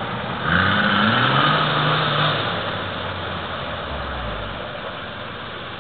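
Off-road SUV engine revving up sharply about half a second in, holding high revs for about two seconds, then easing back off.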